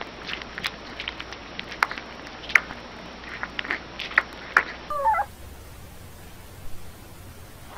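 Newborn puppy suckling on a baby bottle's teat: a run of small wet clicks and smacks. Just after a cut about five seconds in, a second puppy gives one brief, wavering high squeak, followed by faint steady hiss.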